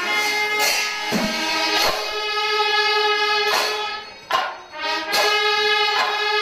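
Music: a melody of held notes that step from pitch to pitch, with a few sharp percussion strikes; it drops away briefly about four seconds in.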